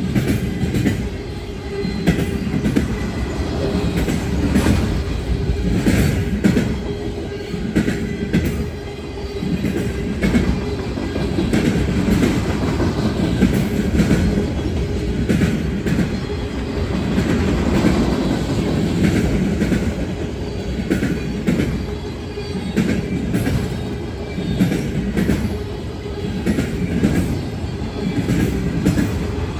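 Freight train of flatcars loaded with military vehicles rolling past: a steady rumble of steel wheels on the rails, with repeated clacks as the wheels cross the rail joints.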